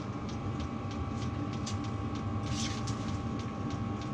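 Steady low hum of the diesel heater running in the ice shack, with faint rapid regular ticking and a brief rustle about two and a half seconds in.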